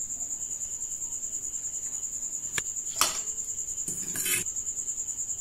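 A cricket chirping in a fast, even trill. A steel slotted spoon clinks against a steel bowl a couple of times, sharpest about three seconds in, then scrapes briefly about a second later.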